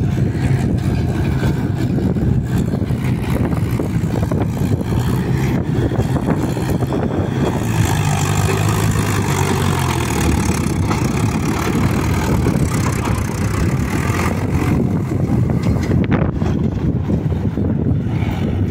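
Diesel farm tractor engine running under load as it tows a trolley heavily loaded with soil. It grows louder as it passes close about halfway through, then fades as it pulls away.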